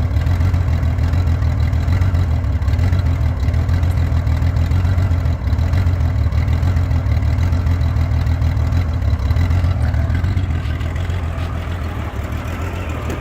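Honda Gold Wing GL1500's flat-six engine idling roughly, a steady low running sound that eases off slightly about ten seconds in. The owner calls it a rough idle, still there with new timing belts and the carburetors cleaned.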